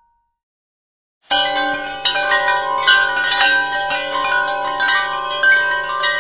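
Silence for about a second, then a soundtrack of many overlapping wind-chime tones starts suddenly and keeps ringing, new notes struck every fraction of a second.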